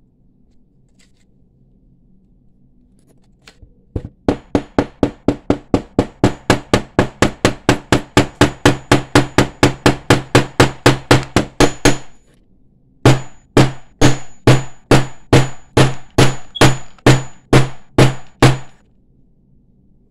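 A hammer repeatedly striking the end of a brass wire held on a metal bench block, each blow a sharp metallic hit. After a few quiet seconds comes a fast run of about five blows a second. Then there is a brief pause and a slower, louder run of about three blows a second.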